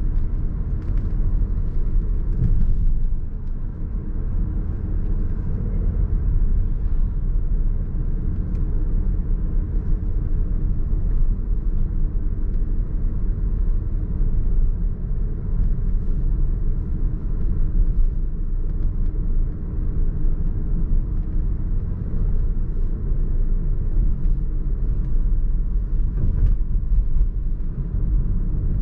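Steady low rumble of a car driving in traffic, engine and road noise with no change in pace, and a few faint clicks.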